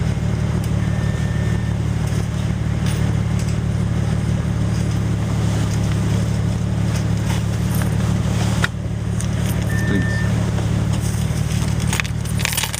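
Car engine idling with a steady low rumble, heard from inside the cabin. Two short high beeps sound, one about a second in and one near ten seconds, and there is a sharp click near nine seconds.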